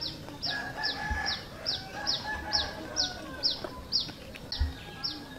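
A bird chirping: a short high note that falls in pitch, repeated evenly about two to three times a second, with fainter clucking-like calls underneath.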